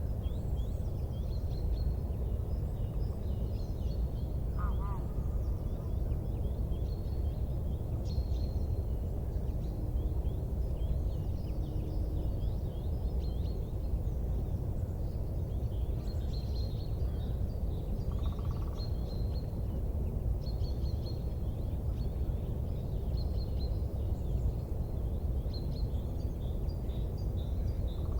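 Small birds chirping repeatedly over a steady low rumbling noise.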